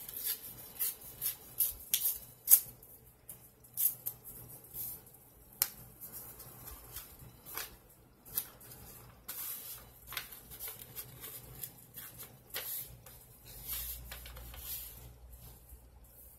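A paper mailing envelope being opened and its contents handled: irregular crinkling and rustling of paper, with sharper crackles scattered through.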